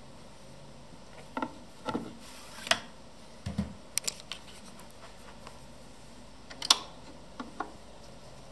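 Thorens TD 170 turntable being handled and set going: a series of sharp mechanical clicks and knocks from its controls and tonearm mechanism, with a dull thump about three and a half seconds in and the loudest click near seven seconds.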